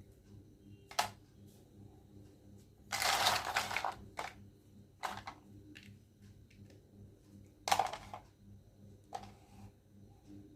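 Plastic toy make-up set and its packaging being handled: a few sharp clicks and taps, with a longer rustling scrape lasting about a second near the three-second mark.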